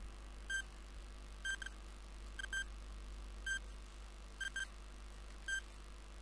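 Countdown timer sound effect: short high-pitched electronic beeps about once a second, alternating between single beeps and quick double beeps, ticking off the seconds.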